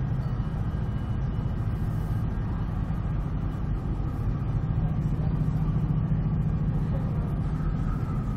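Diesel engines of CN light locomotives, GE C44-9W units, running with a steady low drone as they move slowly on the track. The drone grows a little stronger about five seconds in.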